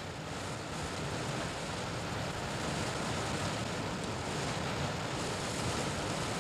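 Fast river rapids rushing: a steady wash of white water, slightly louder after the first second.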